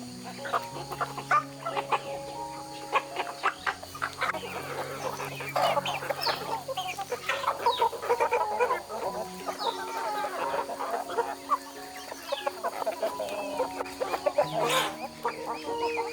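Chickens clucking, many short calls overlapping irregularly throughout.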